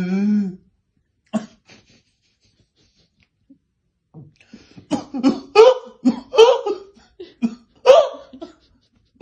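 A child coughing while hiccuping. After a short voiced sound at the start and one short burst about a second and a half in, a run of about eight sharp, separate coughs and hiccups comes in the second half.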